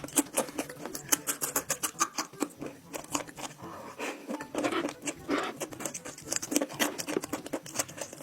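Close-miked eating sounds of a person chewing goat-head meat, mouth smacking in a fast, irregular run of clicks, thickening briefly around the middle.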